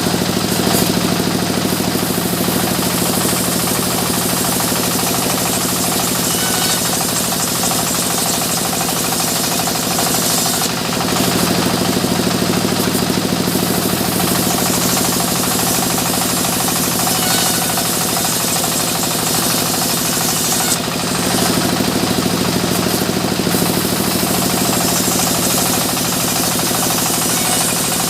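Sawmill machinery running steadily and loudly. About every ten seconds there is a harsher stretch of two to three seconds with more hiss and a heavier hum, as a saw works through the timber.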